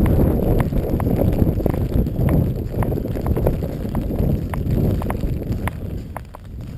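Rumbling noise of wind on the microphone, with scattered sharp ticks a few times a second at irregular spacing; it eases off near the end.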